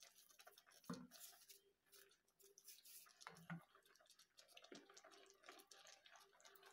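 Near silence, with faint scattered pops and ticks of a creamy pasta sauce simmering in the pan.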